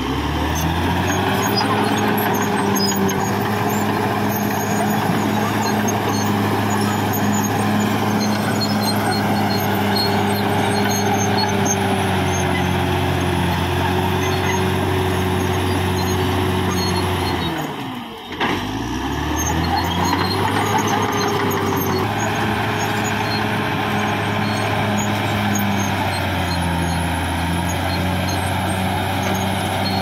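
Caterpillar D6R XL bulldozer's diesel engine working at steady high revs. About two-thirds of the way through, the engine pitch drops sharply and then climbs back to steady working revs.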